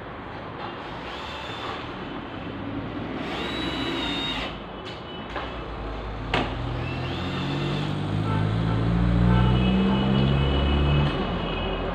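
Cordless drill-driver driving screws into a cabinet panel: short whirring bursts that rise and fall in pitch, a sharp click about six seconds in, then a louder, lower drone from about seven to eleven seconds in.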